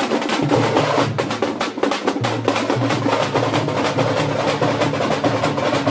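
A group of thamate frame drums and barrel drums beaten with sticks together in a fast, dense, continuous rhythm.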